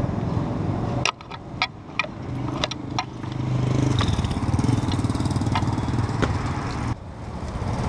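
A motorcycle engine running steadily, with a handful of sharp clicks and knocks between about one and three seconds in. The engine sound drops out abruptly about a second in, builds back up, and drops again near the end.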